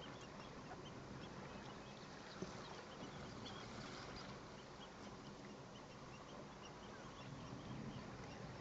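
Steady hiss of wind and water, with many faint, short high-pitched calls from common shelducks scattered through it.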